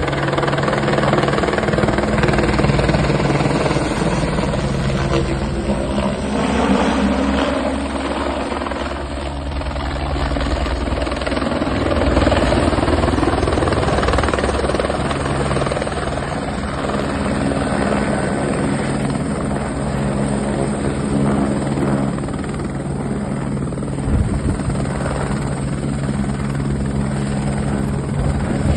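Airbus AS350 Écureuil helicopter in flight: its three-blade main rotor and single turboshaft engine give a continuous low drone under a rushing noise, with the low tones fading and returning a few times.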